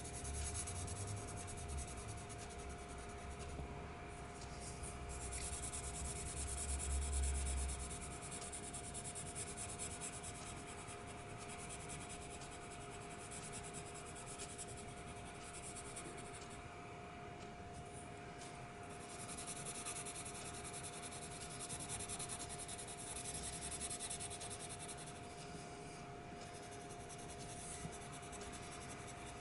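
Purple colored pencil shading on drawing paper: a continuous scratchy rubbing of the lead in back-and-forth strokes. A low rumble sounds in the first eight seconds, loudest about seven seconds in, and two faint steady hum tones run underneath.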